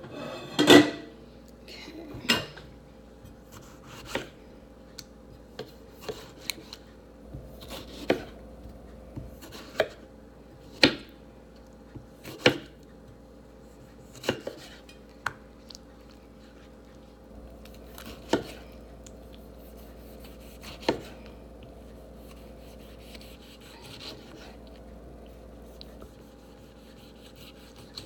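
Kitchen knife cutting through a tomato on a wooden cutting board, the blade knocking sharply against the board every second or two; the knocks thin out to a few faint ones after about 21 seconds.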